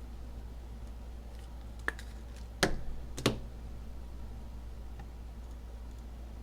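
A faint click, then two sharper clicks about half a second apart, over a steady low hum.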